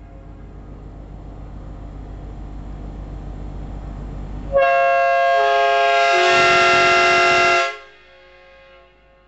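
Replica four-horn train air horn, fed from a 12 V compressor and air tank through a ball valve, sounds a loud multi-note chord for about three seconds, starting about four and a half seconds in. Lower notes join in about a second after it starts, and the chord cuts off fairly quickly. Before the blast, a low pulsing sound grows steadily louder.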